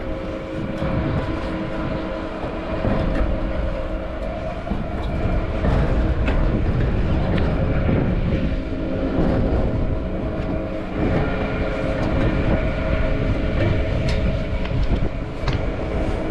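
A machine running steadily: a droning hum with several steady tones over a low rumble.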